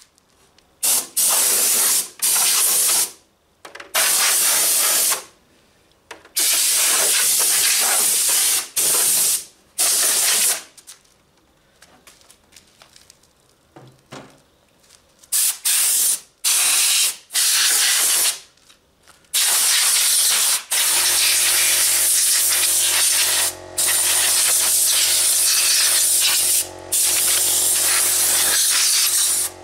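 Compressed air from a compressor's blow gun hissing in repeated short blasts, blowing dust out of a CRT monitor's chassis, then held on longer in the second half. A steady low hum comes in at about the same time.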